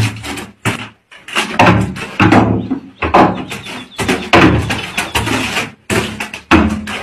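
Wooden slatted gate banging and rattling over and over as an animal jumps against it, in a run of loud bangs with short pauses between them.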